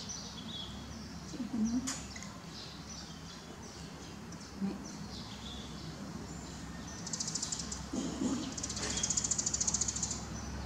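Birds chirping in the surroundings, with short high chirps and then a rapid high trill lasting about three seconds from around seven seconds in, over a faint low hum.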